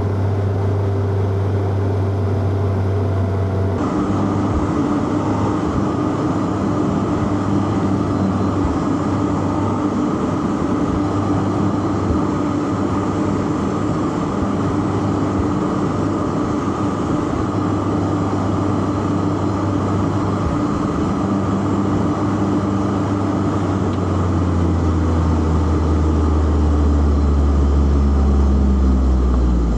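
Inline-four petrol car engine pulling steadily through a gear, with road and tyre noise. The note changes abruptly about four seconds in. A deeper drone builds from near the end and gets a little louder.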